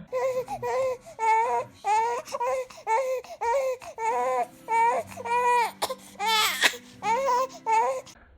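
Infant crying in a rapid run of short wails, about a dozen in a row, with the loudest, highest-pitched cry about six and a half seconds in.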